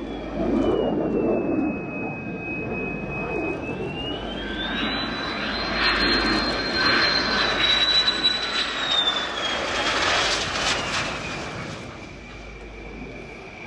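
General Dynamics F-16C Fighting Falcon jet engine on final approach to landing, running with a high whine over steady jet noise. The whine climbs in pitch about four seconds in, holds, then drops back after about nine seconds as the jet comes over the runway.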